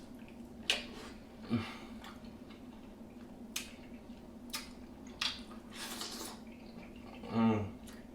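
Close-up wet eating sounds from a seafood boil: squishing and sucking at buttery king crab legs, with scattered sharp clicks and snaps of shell. A short hummed vocal sound comes near the end.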